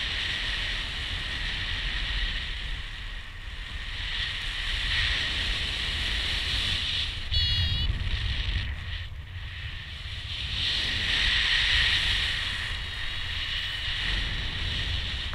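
Wind rushing over the microphone of a paraglider pilot's harness-mounted camera in flight, a steady rush with low buffeting that swells and eases every few seconds. A brief high-pitched tone sounds about seven seconds in.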